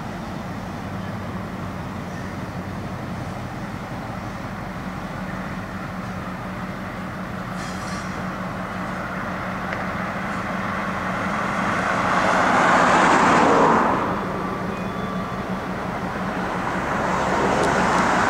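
Freight train rolling past: a steady low diesel hum under rumbling wheel-and-rail noise. The noise swells to its loudest about two-thirds of the way through, drops off suddenly, then builds again near the end.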